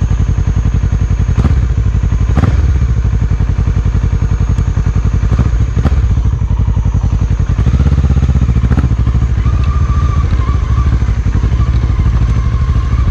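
Motorcycle engine running steadily under load on a steep uphill road, with a few sharp knocks from the ride. The engine note swells for about a second around eight seconds in.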